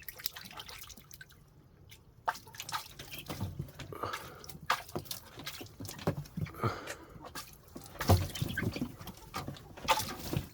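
Water dripping and splashing in irregular little taps and plops, a drop every fraction of a second, with a few soft brief sounds mixed in.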